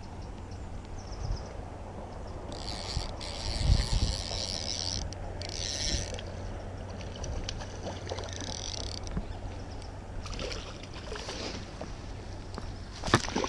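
Click-pawl fly reel ratcheting in several short bursts as line runs on and off the spool, over the steady rush of a fast-flowing stream. A few sharp knocks near the end.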